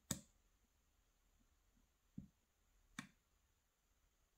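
Small metallic clicks from a lock pick working the pins of a euro half-cylinder lock: two sharp clicks about three seconds apart, the first the loudest, with a duller tap between them.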